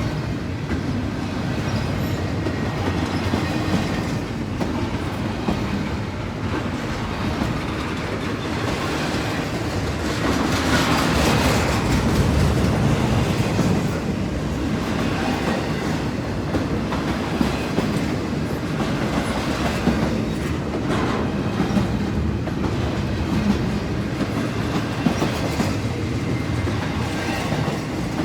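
CSX double-stack intermodal freight train rolling past: a steady rumble of the cars with wheels clicking over rail joints, swelling louder for a few seconds near the middle.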